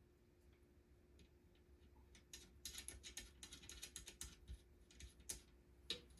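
Faint quick clicking and light clinks of small metal rack hardware (bolts, washers, nuts) being handled, starting about two seconds in, with two sharper clicks near the end.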